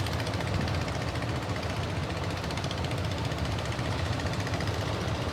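Fishing boat engine running steadily with a low rumble, just before it is shut off.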